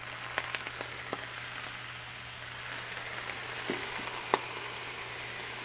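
Sweet potato chunks sizzling on a hot Blackstone flat-top griddle as water is squirted onto them and around a steel steaming dome, flashing to steam with a steady hiss. A few sharp clicks and pops come through the sizzle.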